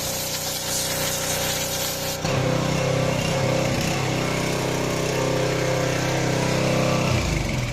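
6 HP gasoline pressure washer engine running with the hiss of the water jet. The spray hiss stops about two seconds in while the engine keeps running, and near the end the engine's pitch falls as it winds down.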